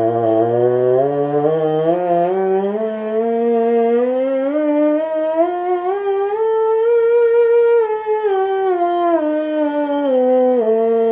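Buzzing on a bass trombone mouthpiece alone, as a warm-up. The buzzed pitch climbs in steps over more than two octaves, holds briefly near the top, then comes back down, stopping near the end.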